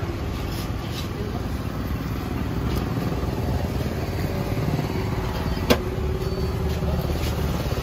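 An engine idling steadily, with one sharp click about six seconds in.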